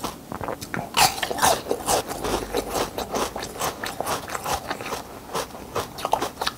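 Ice being crunched and chewed between the teeth: a dense run of sharp, crackling crunches as pieces bitten from a moulded slab of ice break up in the mouth, picked up close by a lavalier mic.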